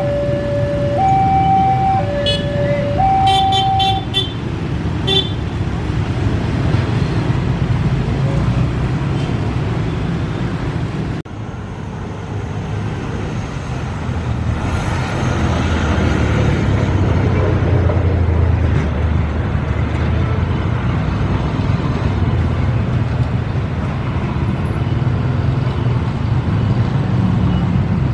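A railway level-crossing warning alarm sounds two alternating tones, switching about once a second, and stops about four seconds in, with a few short horn beeps over engine and traffic noise. After that comes steady road traffic and engine noise, with a low rumble swelling in the middle.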